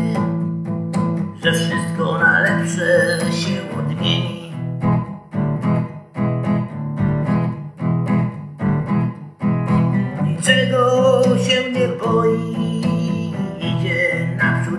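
A blues song played on guitar, with sustained low notes under a lead line that bends and glides in pitch.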